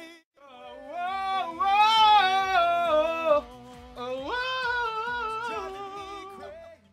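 Wordless singing: one voice carrying two long, sliding melodic phrases. The second phrase starts higher, about four seconds in.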